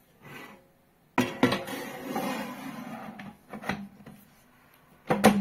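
Xiaomi Smart Air Fryer Pro 4L basket being handled and slid into the fryer body: a scraping, rattling slide of about two seconds, a few clicks, then a sharp clack near the end.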